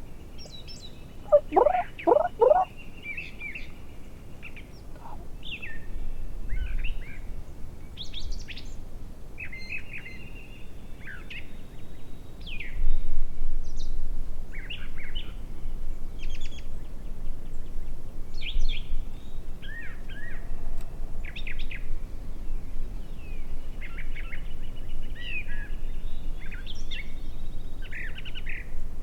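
Songbirds singing in a steady morning chorus of short chirps and trills. About a second in there is a quick run of four louder, lower calls.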